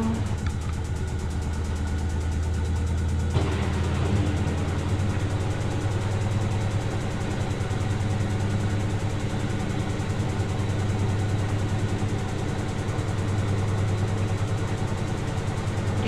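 Midea washer-dryer spinning at high speed on its spin cycle: a steady low hum from the drum and motor, whose sound shifts abruptly about three seconds in. The machine sways under the spin, which the owner judges not critical.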